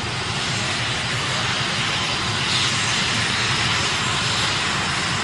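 Mi-17-type twin-turbine military helicopter running on the ground: a steady, loud rush of turbine and rotor noise.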